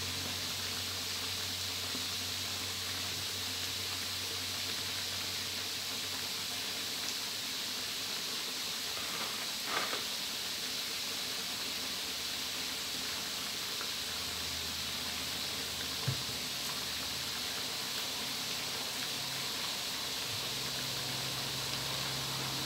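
Chicken frames deep-frying in hot oil in a wide pan: a steady sizzle, with a brief louder crackle about ten seconds in and a single sharp click about six seconds later.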